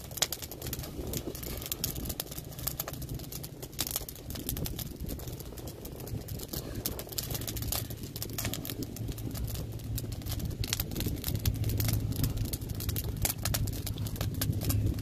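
Wood fire crackling with frequent irregular pops and snaps, over a low steady rumble that grows a little stronger in the second half.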